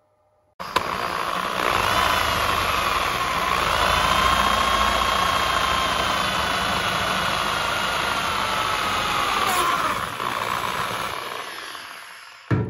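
Power drill running as its bit bores a hole through a motorcycle fairing panel. It starts suddenly, its whine shifting in pitch under load, and winds down near the end, with a short click at the very end.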